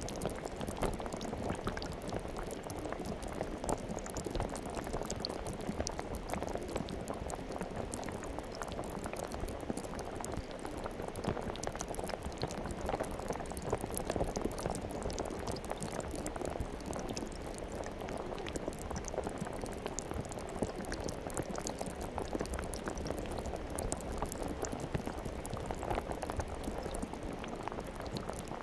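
Slime being squeezed and kneaded by hand: a continuous stream of small wet crackles and pops.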